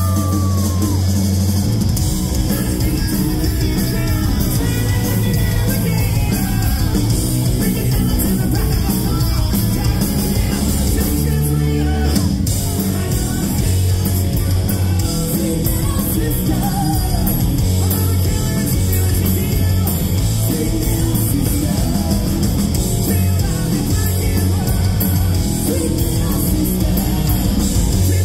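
Live heavy rock band playing loud, with drums, bass and distorted electric guitars, while a male and a female singer share sung and screamed vocals.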